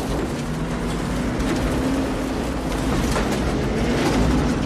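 Film sound of a tornado's wind rushing around a moving truck: a dense, steady noise with a low hum held underneath.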